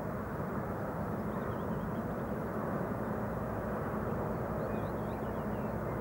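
Steady low outdoor background rumble with no clear pitch. Faint high chirps come in about a second and a half in and again around five seconds.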